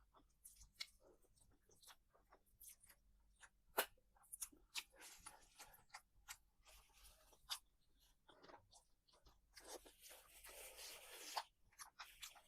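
Faint close-up eating sounds: chewing and crunching with many small clicks, one sharper click about four seconds in, and a longer rustling hiss near the end.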